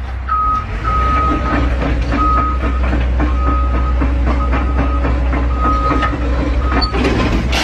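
Vehicle reversing alarm beeping about once a second over a steady engine rumble, with some clattering.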